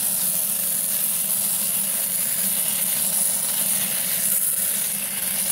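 Compressed air hissing steadily through a homemade venturi-fed PVC aircrete foam gun as it sprays soap foam. The air supply is unregulated at about 90 psi.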